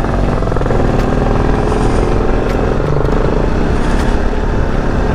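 Bajaj Pulsar NS200's single-cylinder engine running as the motorcycle is ridden, its note holding fairly steady, over a haze of road noise.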